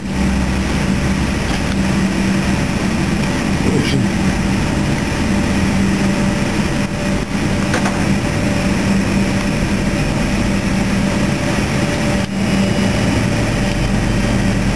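Steady cabin noise inside a Boeing 737-200 Advanced waiting for takeoff: an even rushing hum with a constant low drone underneath.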